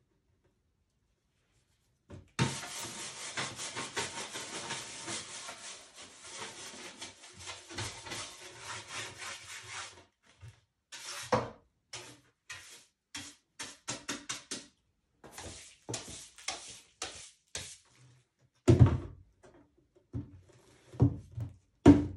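A hand tool scraping across a painted canvas: a continuous scratchy scrape for several seconds, then a run of short separate strokes. A few heavy knocks near the end are the loudest sounds.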